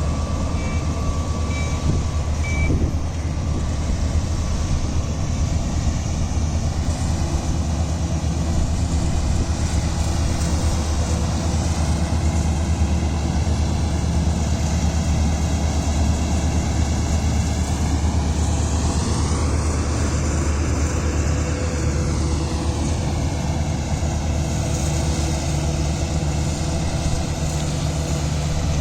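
Paddy combine harvester running steadily under load, a loud continuous engine hum mixed with the rush of its cutting and threshing machinery. About two-thirds of the way through, the upper part of the noise briefly sweeps up and back down.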